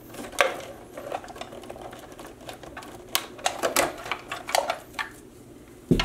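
Irregular plastic clicks and rattles of a computer's cable connectors and wiring being worked loose by hand inside the metal case, as the main motherboard power connector is unplugged; the clicks bunch up in the second half, with a sharp click at the very end.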